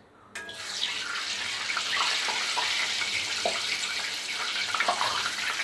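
Chicken samosas deep-frying in hot oil in a cast-iron karahi: a steady sizzle that starts about half a second in, with scattered crackles and pops.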